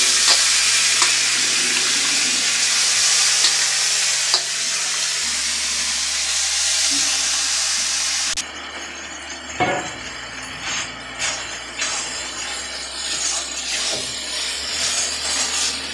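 Loud sizzling as washed, wet rice is added to hot oil and spice paste in a kadai. About eight seconds in it drops suddenly to a quieter sizzle, with clinks and scrapes of a metal ladle stirring the pan.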